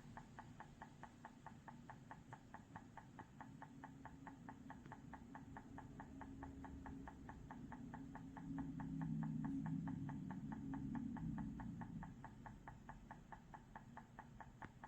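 Faint, fast, regular ticking, about five ticks a second, with a low hum that swells up past the middle and fades again.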